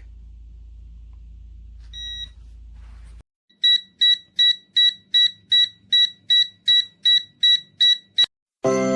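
Halogen refrigerant leak detector beeping: one short high beep about two seconds in, then a steady run of quick beeps, about three a second, for some four and a half seconds, its alarm for sensed refrigerant. Music starts near the end.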